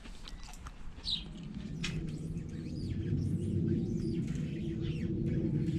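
Birds chirping in short, scattered calls over a low mechanical rumble that builds up about a second and a half in and then holds steady.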